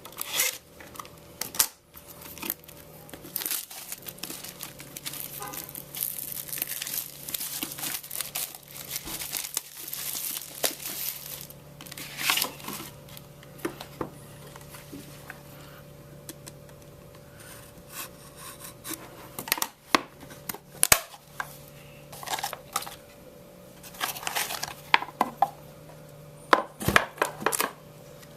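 Plastic shrink wrap being torn off a sealed trading card box, crinkling and ripping in repeated bursts, with sharp snaps and clicks of the packaging in the second half, over a faint steady hum.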